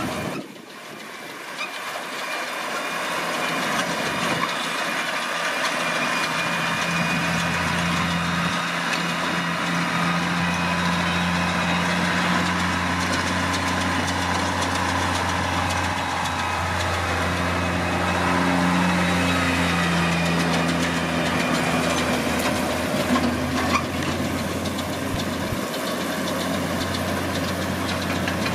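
New Holland T6070 tractor's diesel engine running steadily while pulling a Vicon RV 1601 round baler that is picking up hay.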